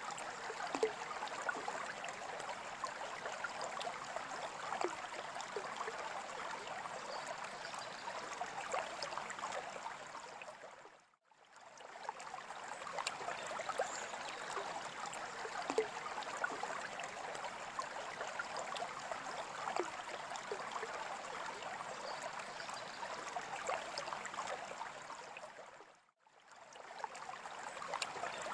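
Water moving in a freshwater aquarium: a steady splashing with many small drips and pops. It fades out to silence and back in twice, about eleven seconds in and again near the end.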